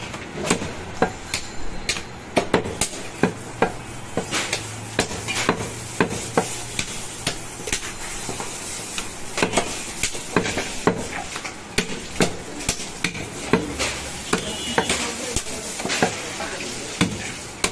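A butcher's cleaver chopping goat meat and bone on a wooden block: irregular sharp strikes, about one or two a second, over a steady hiss of background noise.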